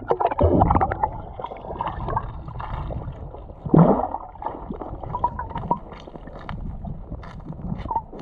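River water splashing and sloshing as someone swims or wades through it, with a louder splash a little under four seconds in.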